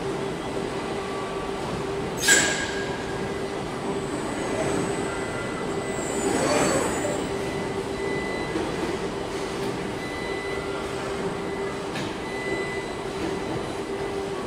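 Machinery of a robotic car-body assembly line, with robots working on a bare MINI body shell: a steady hum, a short sharp hiss about two seconds in, and a swelling whoosh around six to seven seconds.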